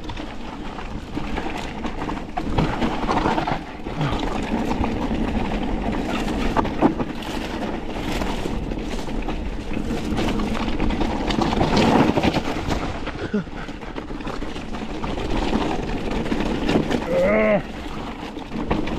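Mountain bike ridden over rough trail: steady tyre and rattle noise with scattered knocks as it goes over the ground, and a short wavering pitched sound near the end.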